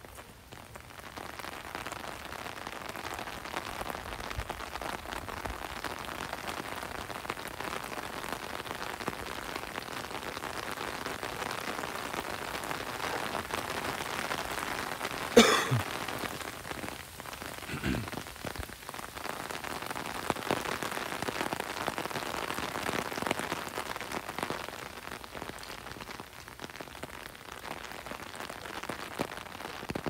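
Steady rain pattering on pavement and foliage, fading in over the first second. About halfway through comes one sharp loud knock, and a smaller one a couple of seconds later.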